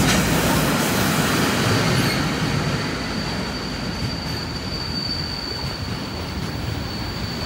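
Container flat wagons of a freight train rolling past at speed: a steady rumble of wheels on rail, with a thin high-pitched wheel squeal that sets in about two seconds in and holds steady.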